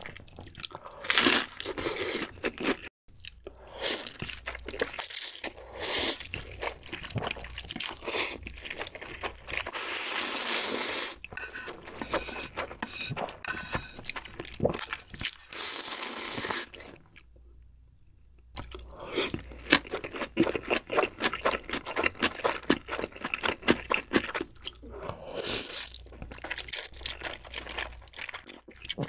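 Close-miked eating: crunching and chewing of battered fried food, then long slurps of noodles and broth amid wet chewing, with a short quiet pause about two-thirds of the way through.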